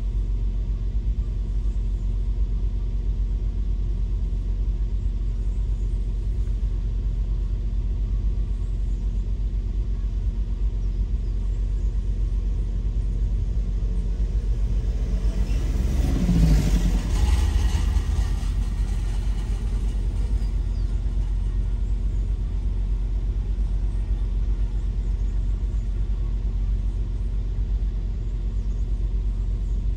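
Car driving: a steady low road and engine rumble, with a louder swell about halfway through that falls in pitch as it fades.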